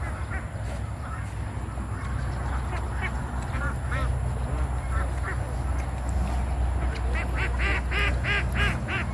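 Domestic ducks quacking: a few scattered single quacks, then a quick run of about seven loud quacks near the end, over a steady low rumble.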